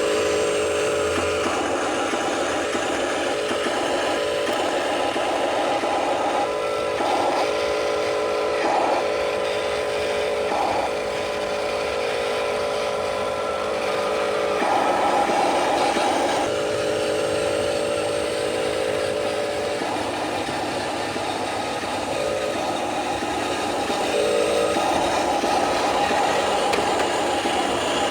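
Radio-controlled truck running: a steady motor and gear whine whose upper tones cut in and out as the throttle changes, with some rattle.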